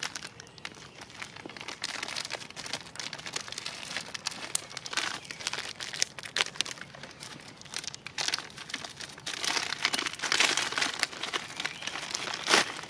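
Clear plastic ration packet crinkling and rustling as it is handled and rummaged through close by, in irregular crackles, with the loudest crackle near the end.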